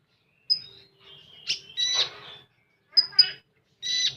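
A konin bird singing in short bursts of high chirps and rapid trills, four phrases with brief pauses between them.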